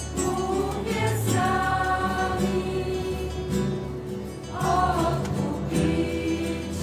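Background music: a Christian choral song, a choir singing long held notes over a steady instrumental bass.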